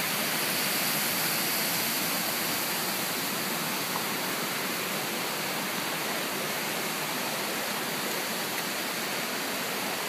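Steady rush of a mountain stream tumbling over rock cascades and a small waterfall.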